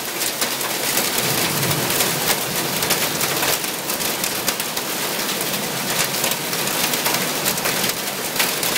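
Hail and heavy rain pelting a tin roof and the ground, a steady dense clatter of countless small impacts.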